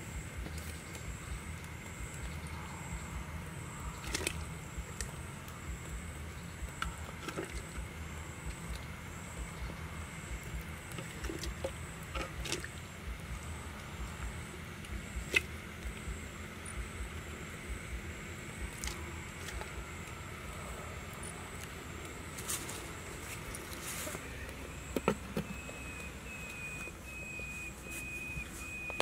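Scattered light knocks and clatters of fish heads and vegetables being handled and put into a clay cooking pot, over a low rumble and a steady, pulsing high-pitched drone. Near the end a steady high whistle-like call starts up.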